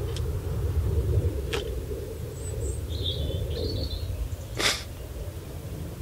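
Wind rumbling on the microphone, with three sharp clicks as the H40 trail camera is handled on the tree, the loudest about four and a half seconds in. A couple of brief high bird chirps come midway.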